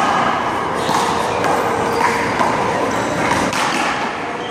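A rubber handball being hit and bouncing off the wall in a one-wall handball rally. The thuds come several times, short and sharp, over background voices.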